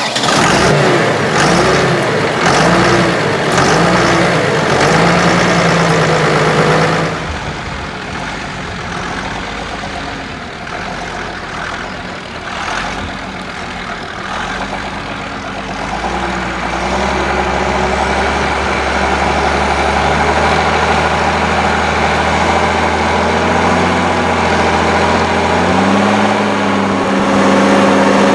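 SAME Titan 190 tractor's diesel engine running, its note rising and falling for the first several seconds. After an abrupt change it sounds steadier and further off while working under load pulling a two-furrow plough, growing louder near the end.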